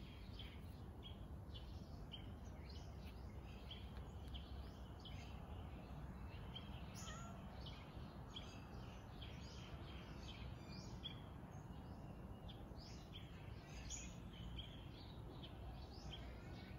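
Birds chirping faintly, many short high calls in quick succession throughout, over a steady low rumble of background noise.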